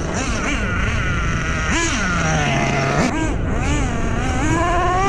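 Kyosho USA-1 Nitro RC monster truck's glow-fuel engine revving up and down as it is driven; about two seconds in the pitch drops and holds low for a second, then climbs steadily near the end.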